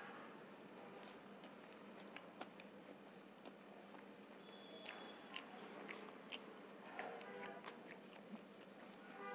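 Faint, close-miked chewing of a mouthful of homemade vegetable pizza: scattered soft mouth clicks and small crunches, coming more often in the second half.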